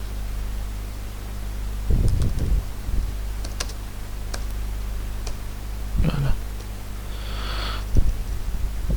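Scattered keystrokes on a computer keyboard, typed in short bursts, over a steady low electrical hum.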